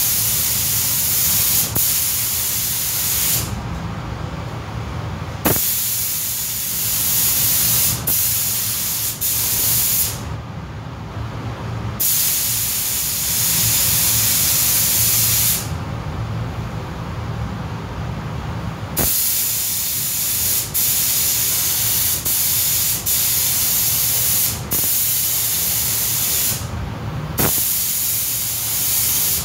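Pneumatic paint spray gun spraying primer in long passes, a loud hiss that stops and starts several times as the trigger is released and pulled again. A steady low hum runs underneath.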